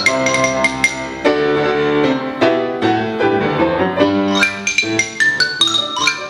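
Marimba and grand piano playing a fast galop together: quick struck mallet notes run high over the piano's chords.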